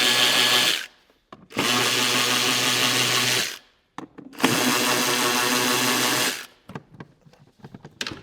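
Power driver fitted with a 5 mm Allen bit spinning out bolts: a steady motor whine that runs out just under a second in, runs again for about two seconds twice more with short pauses between, then gives way to a few small clicks of handling.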